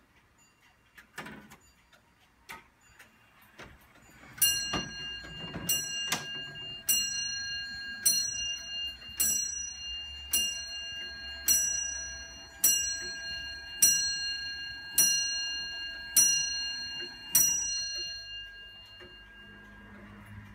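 The bell of a circa-1790 Richard Collis eight-day longcase clock being struck by its hammer, about a dozen strokes a little over a second apart, each ringing on. The clock ticks faintly before the strike begins.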